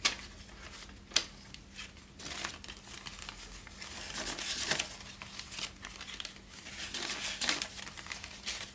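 Paper US dollar bills being counted by hand: crisp rustling and crinkling, with sharp flicks as single notes are pulled from the stack.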